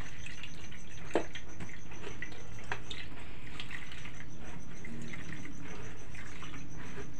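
Grated coconut being squeezed and kneaded by hand in a bowl of water to press out the second, thinner coconut milk: wet squelching and dripping, with a single knock about a second in.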